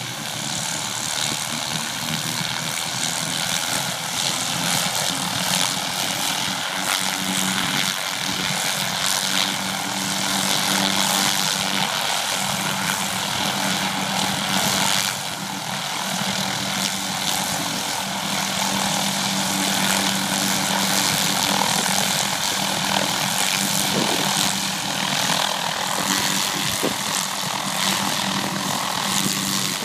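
Light helicopter's engine and main rotor running steadily, with a brief dip in level about halfway through.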